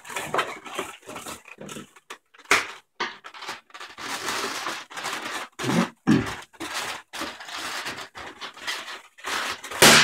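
Latex modelling balloons (160-size) squeaking and rubbing against each other as they are twisted and handled, in irregular bursts, with a louder sharp rub near the end.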